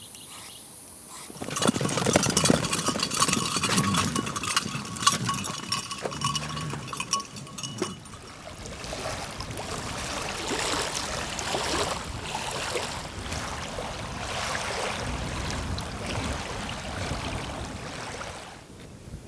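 Metal clinking and rattling with a ringing tone, starting about two seconds in and giving way after several seconds to a rougher, scuffing noise.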